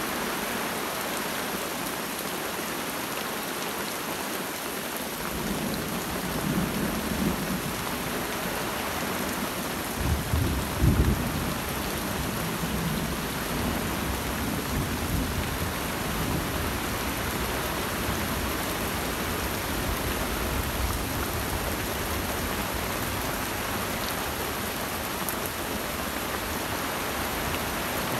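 Steady rain falling through forest during a thunderstorm, with thunder rolling in: a low rumble builds from about five seconds in, is loudest around ten to eleven seconds in, then fades back under the rain.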